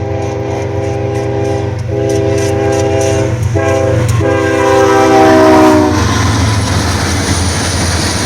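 Locomotive air horn sounding a chord at a grade crossing in the crossing pattern: the end of a long blast, another long, a short, and a final long that stops about six seconds in. The train then rumbles past with steady wheel clatter.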